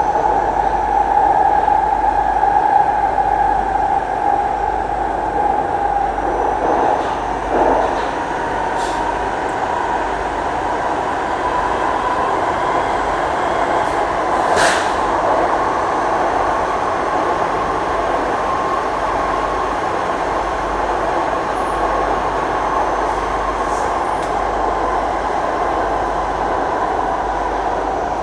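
Singapore MRT train running at speed through a tunnel, heard from inside the carriage: a steady rumble and rush with a constant whine. A couple of brief sharp knocks come from the track, about 7 and 15 seconds in.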